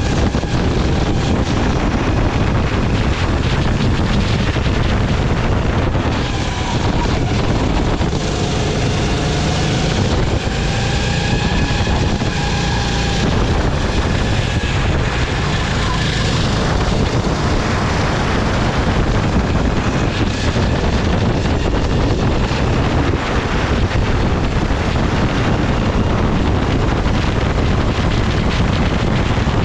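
Sodi rental kart engine running at racing speed, its pitch rising and falling through the corners, with wind rushing over the onboard microphone.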